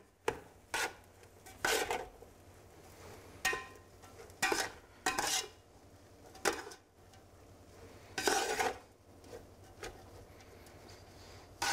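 Metal slotted spoon scraping and clinking against the sides and bottom of an aluminium pot as fried mince and onion are stirred, in short irregular strokes, with one longer scrape about eight seconds in.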